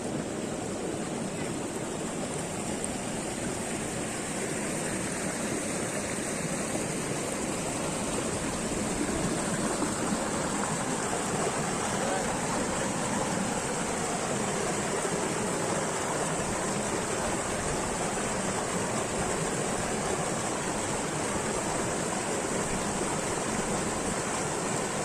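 Waterfall's water rushing steadily, a constant hiss and rumble with no breaks.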